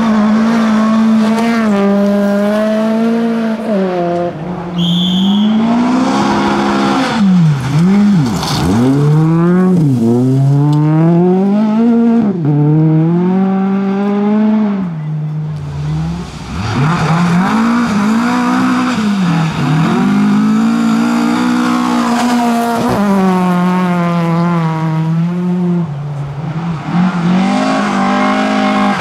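Tuned Volvo rally cars driven hard, engines revving high. The pitch climbs and drops sharply at each gear change and swoops down as cars pass close by, several times over.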